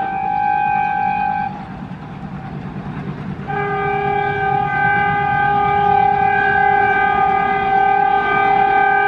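Air horn of a WDM3A diesel locomotive blowing, breaking off about a second and a half in and leaving the rumble of the moving train. It sounds again from about three and a half seconds in as a long blast with a lower note added, getting louder.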